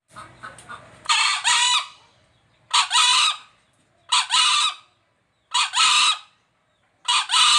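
Green junglefowl crowing five times, about one crow every second and a half, each a short two-part call: a brief first note followed by a longer second note.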